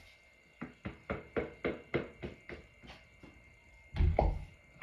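A rapid run of light knocks, about four a second, growing fainter, then one heavier, deeper thump near the end.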